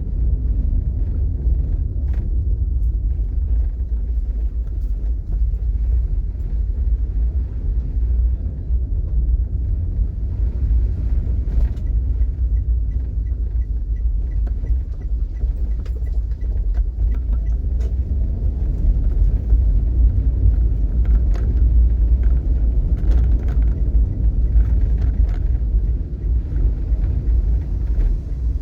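Steady low rumble of a car driving, with faint scattered ticks over it.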